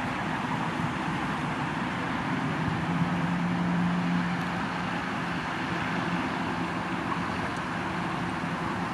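Outdoor traffic noise with a steady, low engine hum that grows a little louder about three seconds in and eases off after about four and a half seconds.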